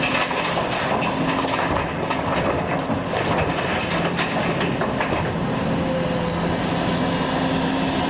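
Volvo excavator's diesel engine running steadily under work, with a run of clattering knocks and scrapes in the middle.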